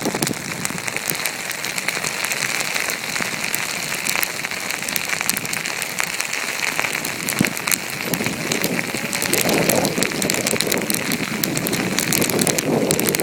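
High-altitude snowstorm: a dense, rapid ticking of wind-driven snow grains striking close by over steady wind noise. The wind gusts harder around nine to ten seconds in and again near the end.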